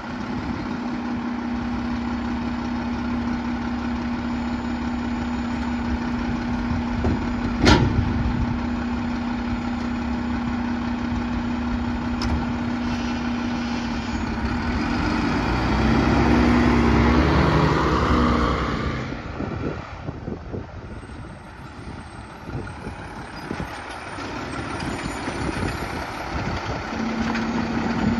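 Mack LEU side-loader garbage truck idling with a steady hum from its running hydraulics, with one sharp bang about eight seconds in. About halfway it revs up and pulls away, goes quieter while rolling, and the steady hum comes back near the end as the automated arm works the next cart.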